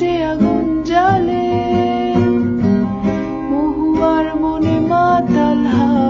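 Music: a Bengali song with acoustic guitar playing prominently, between sung lines.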